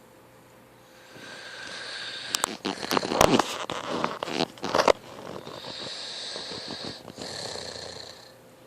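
A teenager snoring in his sleep. A breath builds into a loud, irregular crackling rattle lasting a couple of seconds, then gives way to a long hissing breath that fades near the end.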